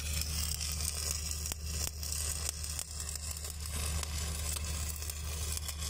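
Stick (SMAW) welding arc crackling and sizzling steadily during an overhead weld on pipe, with a few sharp pops and a steady low hum underneath.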